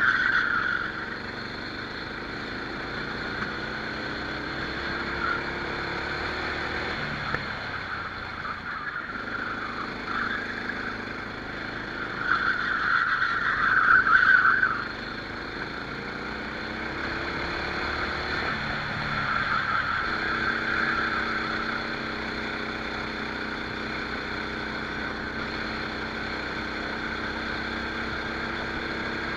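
Rental kart engine heard onboard during a race lap, its pitch rising and falling as it accelerates and lifts through the corners. A louder rasping hiss swells over it about halfway through and again briefly a few seconds later.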